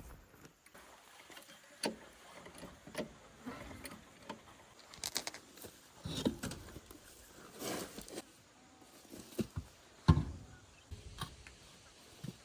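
Scattered metallic clinks, knocks and rattles of tools and wheel parts while a flat tyre is changed. The loudest knock comes about ten seconds in.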